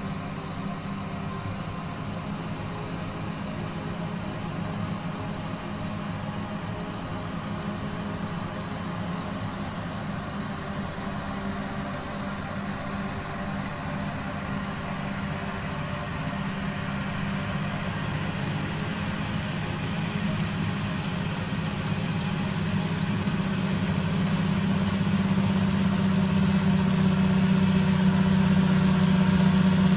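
John Deere tractor diesel engines, a six-cylinder 8530 among them, working steadily under load while pulling seed drills across a slope. The steady engine drone grows louder over the second half as the tractors come closer.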